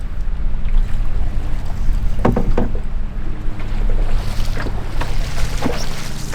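River water moving around a small fishing boat, with wind on the microphone, and a few short splashes or knocks about two, four and a half, and five and a half seconds in.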